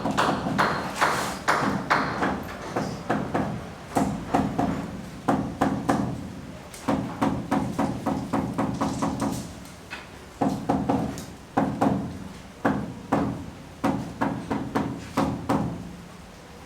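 Hammering: rapid strikes in runs of a second or two, with short pauses between the runs.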